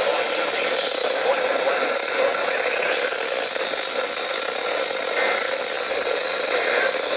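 Radio static: a steady hiss from a receiver with no programme on it.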